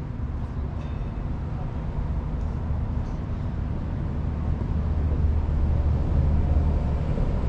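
Steady low rumble of outdoor background noise, growing louder about five seconds in.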